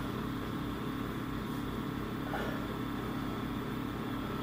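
Steady low hum with a layer of hiss: the background noise of an old home video recording, with no voices.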